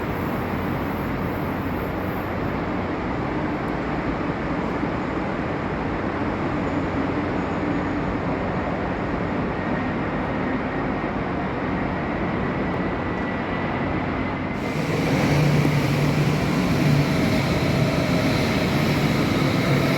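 A train running through the station, a steady rolling rumble with a faint rising whine. About three-quarters of the way in, the sound changes abruptly and gets louder, with a low hum added.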